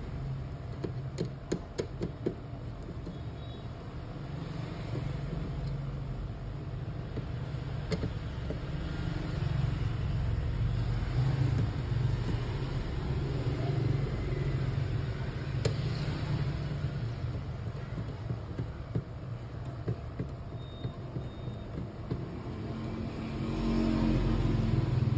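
Steady low background rumble, with a few sharp clicks about a second or two in and occasional single ticks later as a screwdriver takes screws out of a copier fuser unit and its plastic and metal parts are handled.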